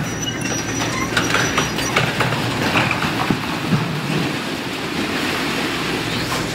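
Caterpillar excavator with a demolition shear tearing down a concrete and steel wall: metal scraping and squealing, with repeated knocks and crashes of falling concrete and debris over the excavator's steady engine hum. A high metal squeal sounds in the first two seconds.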